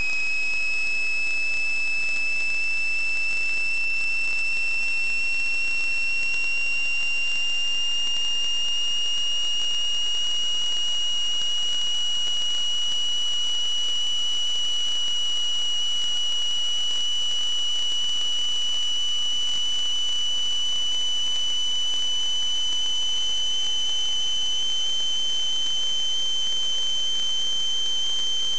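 A continuous high-pitched electronic tone that creeps slowly upward in pitch, with a fainter tone gliding slowly downward beneath it.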